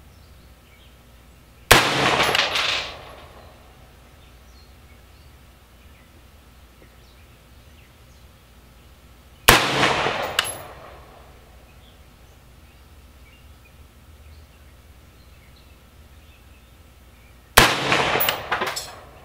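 Three single shots from a 1971 Colt SP1 AR-15 rifle with a 20-inch barrel, firing 5.56 ammunition, spaced about eight seconds apart in slow aimed fire. Each sharp crack dies away over about a second.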